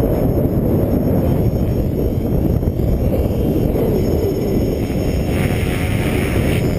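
Heavy wind buffeting on the microphone, a steady low rumble. Under it, the faint rotor and motor whine of a Gaui X5 electric RC helicopter in flight, stronger for a moment near the end.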